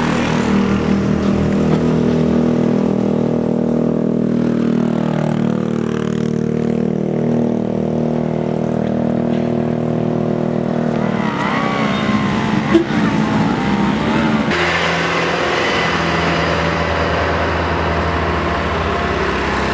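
Motor vehicle engines labouring up a steep hill, a steady drone with a wavering rise and fall in pitch between about eleven and fourteen seconds in; the sound changes abruptly a little later.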